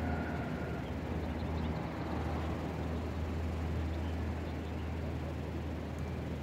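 Wind buffeting the microphone: a steady low noise with no breaks.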